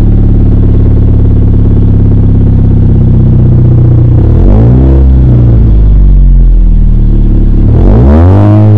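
Exhaust of a 2017–2020 Lexus IS running through a muffler-delete axle-back on the factory mid-pipe. It idles steadily, then is blipped twice: once about four and a half seconds in and again near the end, the pitch rising and falling back each time.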